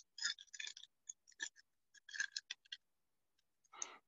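Panini Illusions basketball trading cards handled and slid past one another: a run of light, sharp clicks and scratches in the first three seconds, then a short brushing slide near the end.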